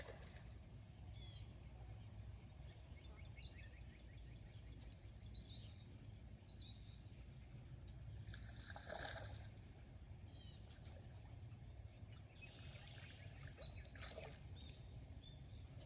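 Faint outdoor ambience: small birds chirping now and then over a steady low rumble, with a short noisy burst about nine seconds in and another noisy stretch a few seconds later.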